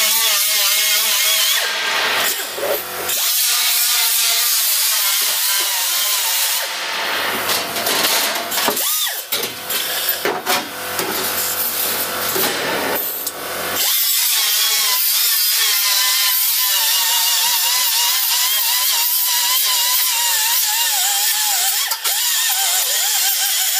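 Angle grinder working the car's sheet-steel floor, its motor whine wavering with the load. It eases off twice and briefly spins up again near the middle.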